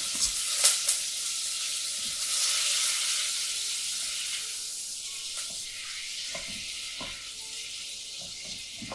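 Butter sizzling as it melts in a stainless steel pot, stirred with a wooden spoon, with a few light knocks in the first second. The sizzle fades gradually.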